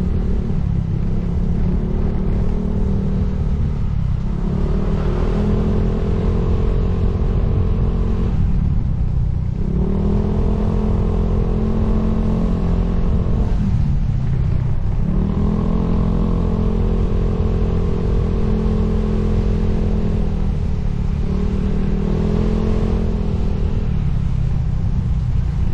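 Motorcycle engine running under way, over a heavy low rumble of wind on the microphone. The engine note eases off and picks up again about four times, as with throttle changes or gear shifts.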